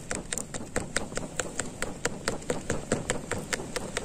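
Rapid, regular tapping, about five sharp taps a second, over a noisy background.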